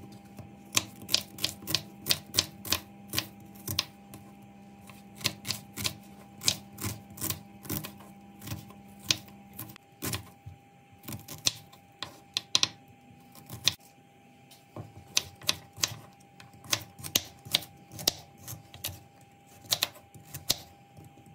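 A kitchen knife chopping an onion, and carrots near the end, on a bamboo cutting board: sharp, uneven knocks of the blade on the wood, about two to three a second.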